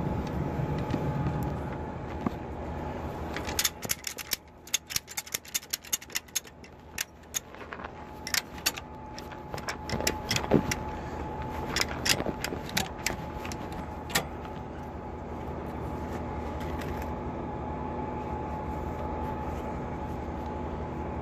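Irregular run of sharp metallic clicks and clinks from tow-strap hardware being worked by hand, thickest between about 4 and 14 seconds in, over a steady engine hum.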